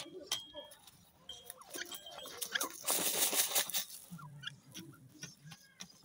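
Grey francolin making soft, low clucks close up, among scratchy clicks. A loud rustling burst lasting about a second comes about three seconds in.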